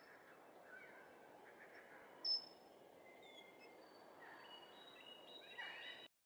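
Faint outdoor ambience with wild birds calling: scattered short whistled chirps over a steady hiss, with one sharp, louder call about two seconds in. The sound cuts off abruptly near the end.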